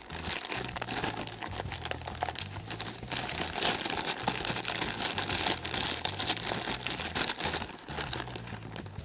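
Plastic packaging crinkling and rustling as small toy pieces are handled and unwrapped, in a long, irregular run of crackles.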